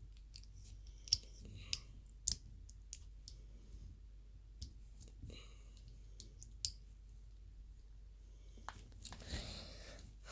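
Small plastic pieces of a Kinder Joy capsule toy being handled and snapped together, making irregular light clicks. A short soft hiss comes near the end.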